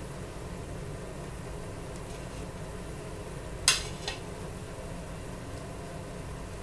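Bread bajji deep-frying in hot oil in a kadai: a steady sizzle over a low, even rumble. About halfway through come two sharp knocks, close together, the second one fainter.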